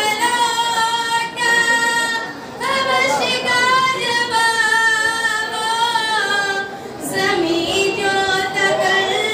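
A young woman's voice singing a naat, an Urdu devotional poem in praise of the Prophet, unaccompanied into a microphone. Long held notes with wavering ornamented pitch, in phrases with short breaks about two and a half and seven seconds in.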